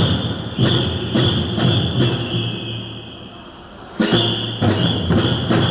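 Large drums beaten by a troupe in strokes about half a second apart, echoing in a large hall, with a high ringing carried under the beats. The beating pauses for about two seconds in the middle, then starts again.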